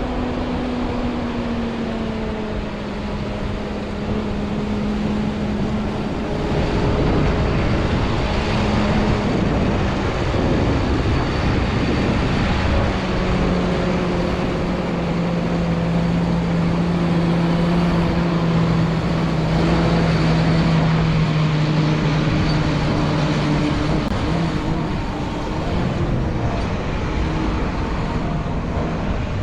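Heavy corn-harvest machinery running, with a steady engine drone whose pitch slides down in the first few seconds and shifts lower again about halfway through, over a continuous mechanical rush.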